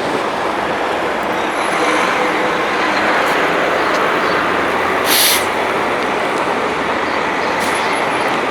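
Steady city street traffic, with a short sharp hiss about five seconds in.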